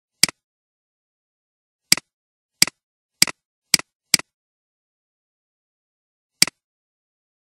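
Computer mouse clicks, seven in all and irregularly spaced, each a quick double click of the button pressing and releasing, with silence between them.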